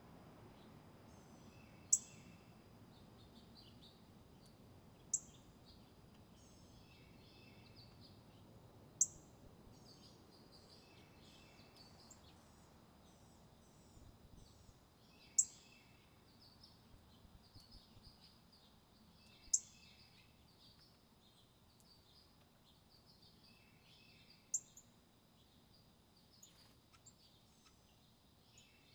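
Small songbirds calling: a sharp, high chip rings out six times, about every four to five seconds, with softer twittering chirps in between. A steady thin high tone runs underneath.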